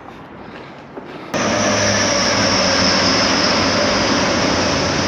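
Small quadcopter drone, a DJI Mini, starting its motors about a second in, then a loud steady high-pitched propeller whine as it runs up.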